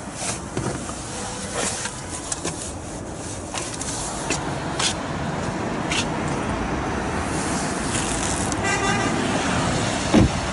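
Steady outdoor traffic noise with scattered clicks and rustles of handling, briefly broken just before 9 s by a short horn-like toot. A dull thump, the loudest sound, comes a little after 10 s.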